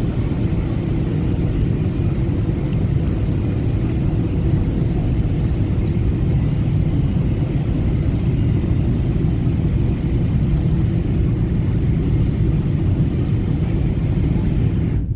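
Steady low rumble of a Boeing 777 jet airliner, with a faint hum above it.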